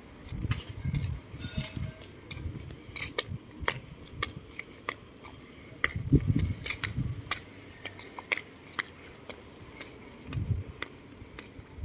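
Footsteps on paving stones: sandals clicking and scuffing in an irregular patter, with a few dull low thumps.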